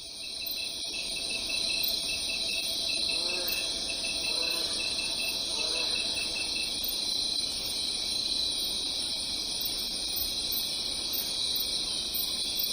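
Insects chirping in a steady high-pitched chorus, with a faster pulsing chirp running through the first half and a few faint lower calls.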